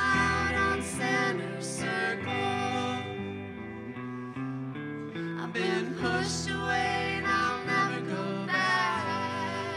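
A live song on electric guitar with a man and a woman singing.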